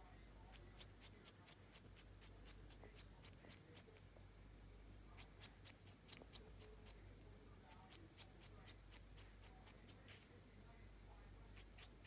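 Green-cheeked conure making faint, rapid clicks with its beak and tongue, in short runs of several clicks at a time with pauses between, over a low steady hum.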